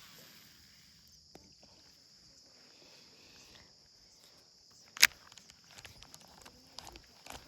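Steady high-pitched chorus of crickets and other insects. A single sharp click about five seconds in, then a few light clicks and rustles near the end.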